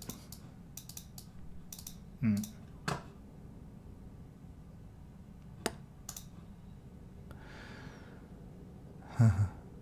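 Scattered sharp clicks of computer mouse and keyboard use, with two short murmured voice sounds, one about two seconds in and a louder one near the end.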